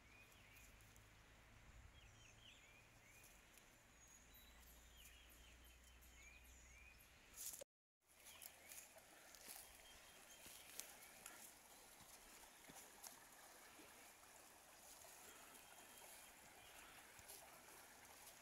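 Faint creekside ambience: small birds chirping in short bursts over the soft hiss of a flowing creek.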